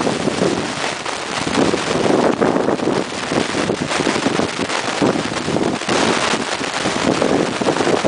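Wind buffeting and crackling on the microphone, in uneven gusts, over the low rumble of an approaching double-deck electric regional train.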